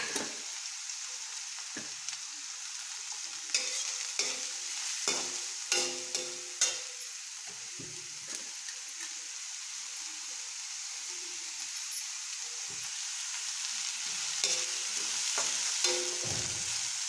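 Chopped green onions sizzling in hot oil in a metal kadhai, a steady hiss. A metal spatula scrapes and clinks against the pan in clusters as they are stirred, about four to seven seconds in and again near the end.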